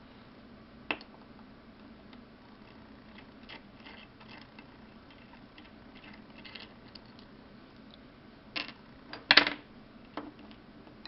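Scattered small metallic clicks and clinks of a screwdriver and the small parts of a lock cylinder being handled while it is taken apart, with the loudest clatter a little past nine seconds in.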